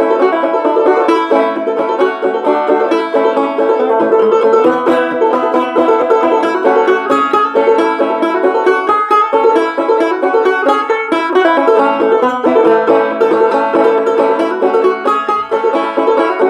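Banjo played clawhammer style: a steady, even stream of plucked notes in an old-time tune, played without syncopation.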